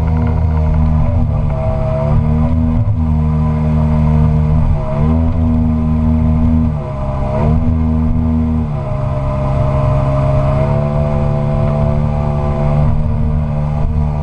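A Tohatsu M50D2S two-stroke outboard driving a water-jet unit, running hard as an inflatable boat climbs a shallow riffle. The engine note dips briefly several times and settles into a different note about two-thirds of the way through.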